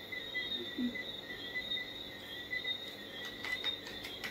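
Crickets chirping steadily in the background, a constant pulsing high trill. A few soft clicks come near the end.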